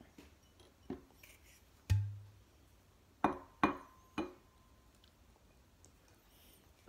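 A few sharp knocks and clinks from a glass wine bottle being handled: a low thump about two seconds in, then three quick clinks, one of which leaves a brief glassy ring.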